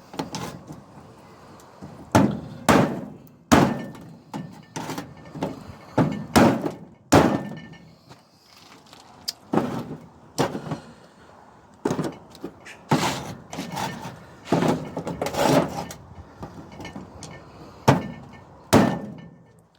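Hammer blows on microwave fan motors resting on two transformers, knocking the copper coils free of the motors. There are about seventeen sharp metallic strikes at irregular intervals, roughly one a second, some ringing briefly.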